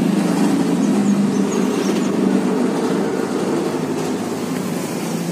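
A vehicle engine idling steadily: a constant low drone that holds the same pitch throughout.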